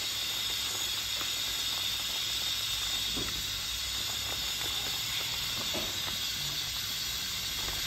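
Steady hiss of the stove and the simmering pot of noodle soup, with a few faint taps and scrapes as chopsticks stir the noodles.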